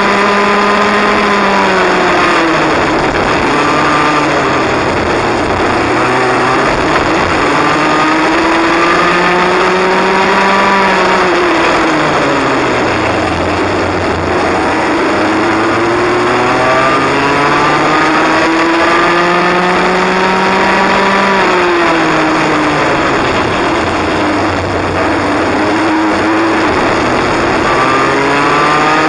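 Cadet kart's small single-cylinder engine heard from onboard, its revs climbing steadily along the straights and dropping quickly off the throttle into the corners, three times over, with steady wind and tyre noise underneath.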